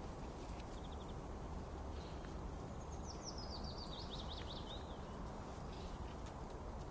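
A songbird singing one quick phrase of notes stepping downward in pitch, about three seconds in, after a short chirp near the start, over a steady low outdoor rumble.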